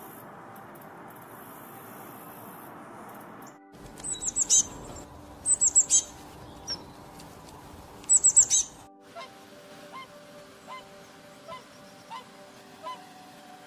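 A steady hiss, then three bursts of rapid, very high-pitched chirping calls, followed by faint short peeps repeating about every 0.7 s.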